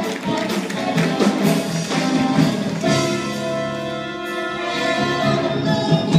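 Live stage-musical band playing, with drum hits over the first half; about three seconds in the band settles on a long held chord.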